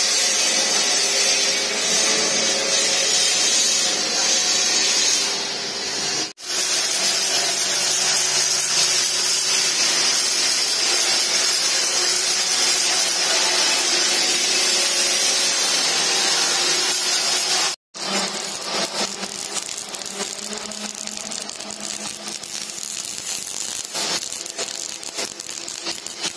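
Steady workshop machine noise, a loud hiss, broken by two sudden cuts. After the second cut comes a MIG welding arc crackling steadily, a little quieter.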